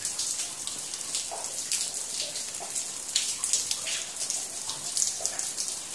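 Water dripping from a limestone cave ceiling and splashing below: many small drips pattering over a steady trickle.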